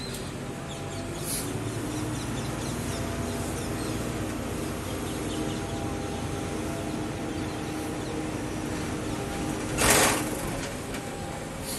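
Bus under way in city traffic: steady engine drone and road rumble, with one short loud hiss about ten seconds in.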